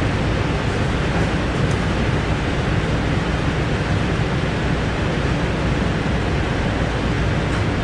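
Steady rushing air noise with a deep low rumble, unchanging throughout: the ventilation running at a pathology grossing station.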